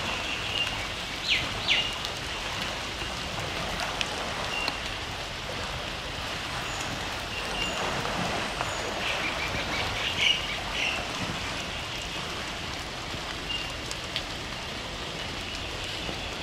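Steady rain falling, with birds chirping over it: two sharp chirps about a second and a half in and a cluster of chirps around ten seconds in.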